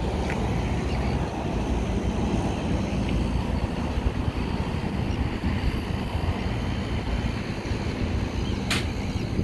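Wind buffeting the microphone: a steady low rumble, with a single short click near the end.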